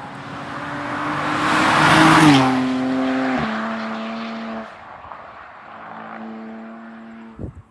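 A car drives past at speed. Engine and tyre noise build to a peak about two seconds in, the engine note drops in pitch as the car passes, and then the sound fades away.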